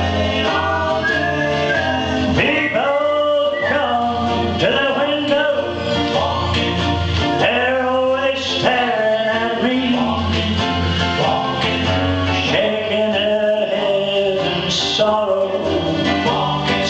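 A man singing a slow country-style song into a microphone over an accompaniment with steady bass notes and guitar.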